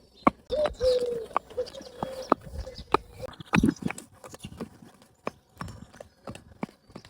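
A pony's hooves clip-clopping in an uneven run of sharp knocks.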